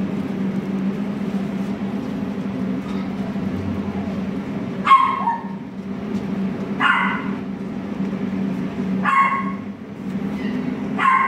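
Border collie puppy giving four short, high barks about two seconds apart, over a steady low hum.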